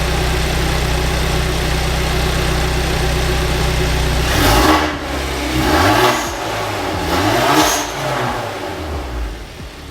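Hyundai Veloster N's turbocharged 2.0-litre four-cylinder idling steadily, then blipped three times, each rev rising and falling about a second and a half apart, before dropping back to idle. It is a test run just after fitting a new intake, turbo inlet and oil catch can, to check that everything works.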